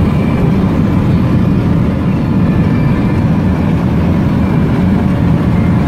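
Dump truck cruising on a highway, heard from inside the cab: a steady low drone of engine and road noise.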